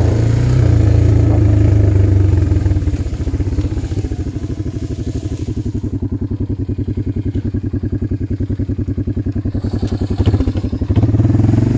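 Honda ATV engine running along a trail. About three seconds in it drops to a slow, lumpy idle where each firing pulse can be heard, then revs back up near the end.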